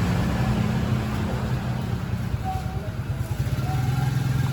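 Motorcycle engine running steadily at low revs, a continuous low hum that settles slightly lower about a second in.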